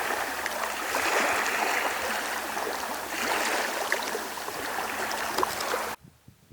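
Lake water lapping and trickling at the shore: a steady hiss of moving water with many small splashes and drips. It cuts off abruptly about half a second before the end, leaving only a faint low rumble.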